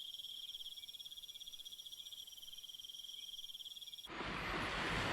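Insects shrilling in a steady, high, finely pulsing chorus. About four seconds in, it cuts off and a broad rushing noise takes over.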